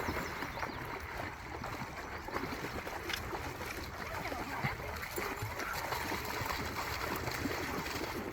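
River water running steadily, a continuous rushing with a few faint ticks mixed in.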